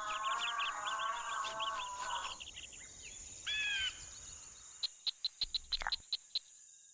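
Wild birds chirping and warbling over a steady high insect drone, with a short two-note call in the middle. In the last two seconds comes a quick run of sharp ticks.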